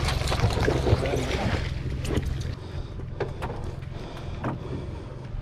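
Low steady rumble of a fishing boat, which drops away about two and a half seconds in, with scattered clicks and small splashes over it.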